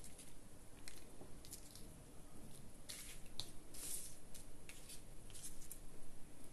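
Paper and craft materials being handled: faint, scattered rustles and light clicks, the busiest stretch about halfway through.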